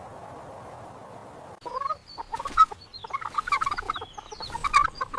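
Hens clucking in a quick run of short calls, starting about a second and a half in after a steady soft hiss.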